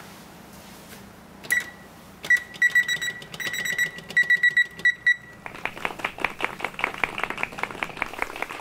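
Electric oven's touch-panel controls beeping with each button press while the oven temperature is set: a single beep, then a quick run of a dozen or so short high beeps in clusters. About halfway through, a rapid, uneven patter of sharp taps takes over.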